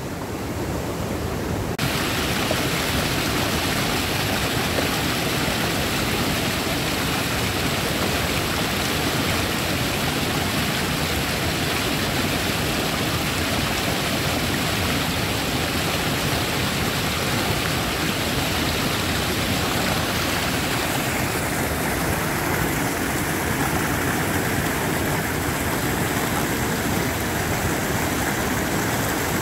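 Rain-swollen creek rushing over rapids: a steady, loud rush of moving water that gets louder about two seconds in.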